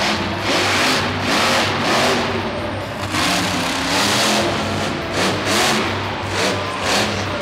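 Grave Digger monster truck's supercharged V8 revving hard in repeated surges, rising and falling about once a second as the truck drives and jumps.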